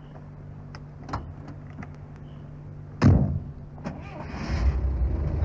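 A car engine idling, with a few light clicks, then a car door slammed shut about three seconds in and a second knock just after. Near the end the engine revs up and grows steadily louder.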